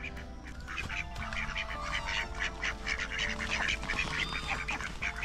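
A flock of ducks quacking, many short calls overlapping, getting louder and busier about two seconds in.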